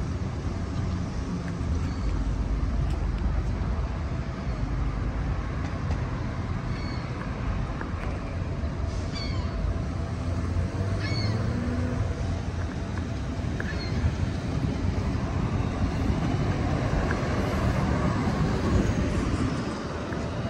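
City street traffic: a steady low rumble of passing cars and buses, with a few short high chirps scattered through the middle.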